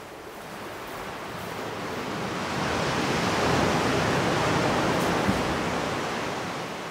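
Ocean surf: a wave washing in on the shore, swelling for about three seconds and then fading away.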